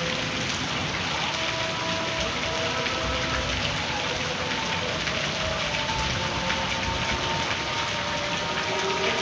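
Heavy rain falling steadily. Over it run faint, long-held tones that shift in pitch every second or two.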